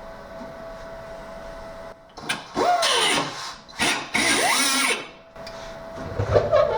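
Handheld power tool run in two loud bursts of about a second each on the car's sheet metal, its pitch dipping and then rising within each burst, followed by a low thump near the end.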